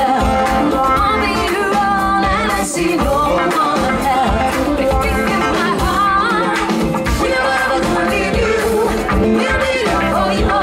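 Live band playing an upbeat dance song: a singer over guitars and a drum kit keeping a steady beat.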